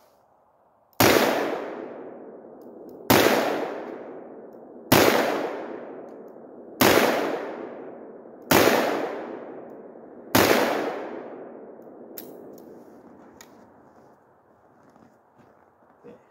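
Six shots from a .44 Magnum Ruger Redhawk six-shot revolver firing 240-grain bullets, about two seconds apart, each followed by a long echo.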